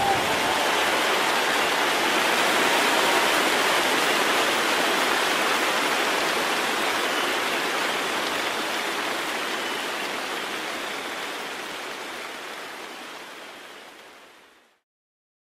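A steady rushing hiss like running water, fading out over the last few seconds and stopping just before the end.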